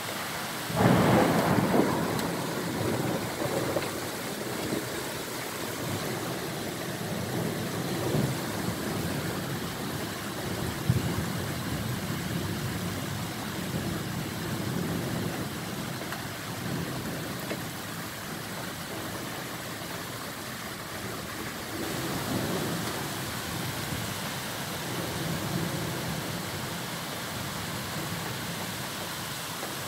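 Heavy rain pouring down steadily in a thunderstorm. About a second in comes a loud thunderclap that rumbles away over a few seconds, and a fainter roll of thunder follows later on.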